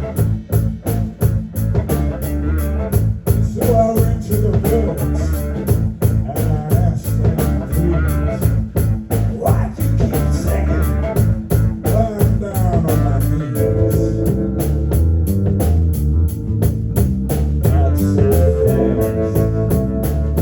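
Live rock band playing loud, mostly instrumental blues-tinged rock: electric guitar over a drum kit with a steady beat, with bending, sliding notes in the middle.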